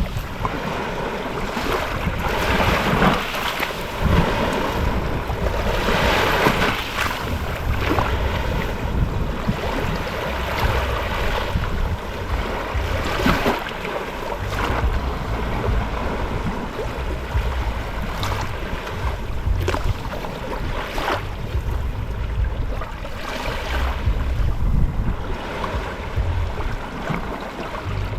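Gentle ocean waves breaking and washing onto the shore, with a surge of wash every few seconds. Wind rumbles on the microphone underneath.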